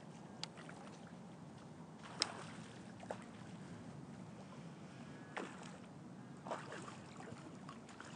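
Faint steady outdoor background noise with about five sharp clicks scattered at irregular intervals.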